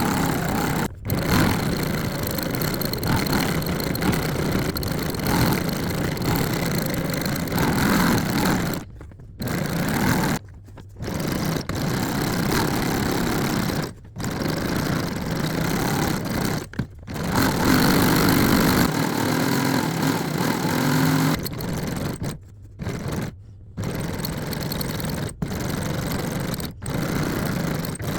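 Janome domestic sewing machine stitching free-motion embroidery in straight stitch, running in steady runs that stop for a moment about ten times and start again.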